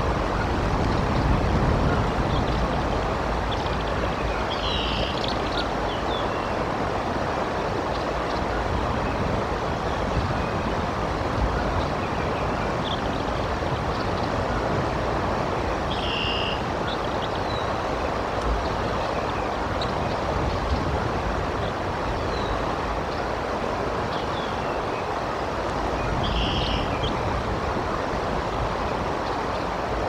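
Steady wind buffeting the nest-cam microphone with rain, a low booming under an even hiss. A few short high bird calls come through about five, sixteen and twenty-six seconds in.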